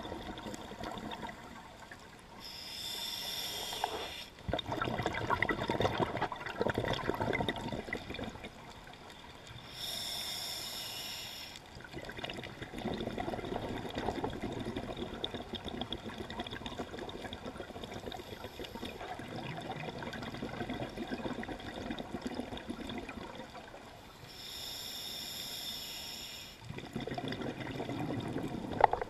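Scuba regulator breathing underwater: three hissing inhalations through the regulator, each followed by a longer bubbling exhalation as exhaled air escapes.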